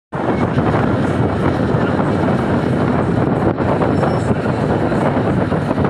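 Steady road noise and rushing wind from inside a moving vehicle at highway speed, heard at its side window.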